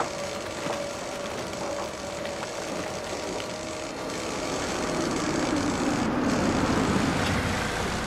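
Construction-site machinery running, a concrete mixer among it, with a faint steady whine. In the second half a car engine draws near, its low rumble growing louder.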